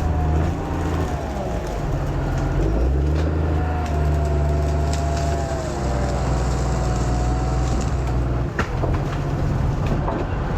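Skidder's diesel engine running close by, its note shifting as the machine is moved into position to push the tree, with a thin higher whine that dips and comes back.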